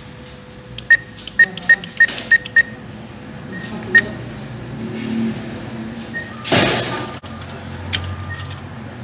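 ATM keypad beeps: six short beeps in quick succession as a six-digit PIN is keyed in, then one more beep about four seconds in as the confirm button is pressed. A brief rushing noise follows about six and a half seconds in.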